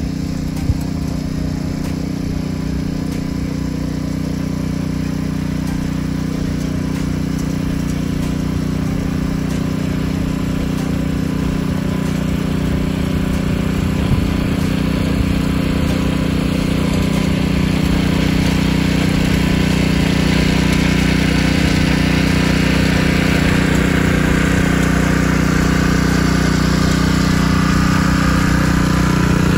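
Champion gas-powered garden tiller running steadily under load as its tines churn the soil, its engine hum growing louder as the machine comes right up to the microphone. A few brief knocks sound near the start and around the middle.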